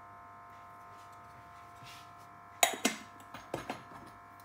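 Kitchenware being set down: a sharp clatter a little past halfway, followed by a few lighter knocks, over a steady hum.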